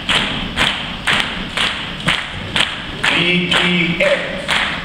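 A group clapping hands together in a steady beat, about two claps a second. From about three seconds in, voices chant along in time.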